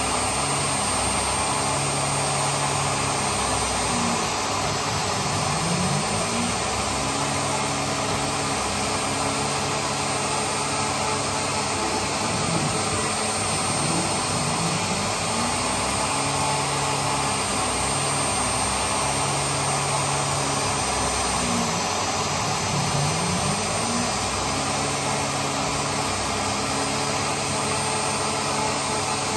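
CNC router spindle running at speed while its cutter mills a shallow pocket for a veneer inlay into a hardwood tabletop. It is a steady, loud whirring, and under it a low tone rises and falls every several seconds as the machine moves back and forth across the pocket.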